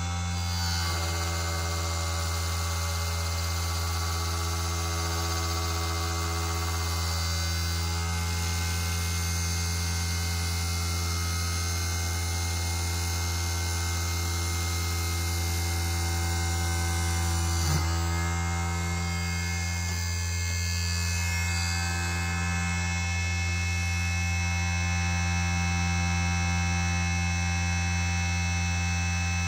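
Small hobby CNC lathe, converted from a CNC1610 machine, running with a steady electric motor hum made of several held tones. A short click comes about 18 seconds in, and the mix of tones shifts slightly after it.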